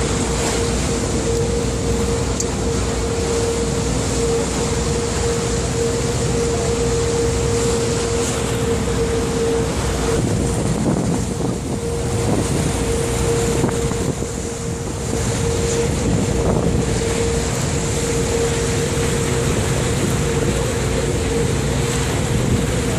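A tour boat's engine running steadily with a constant droning hum, over rushing water and wind noise on the microphone.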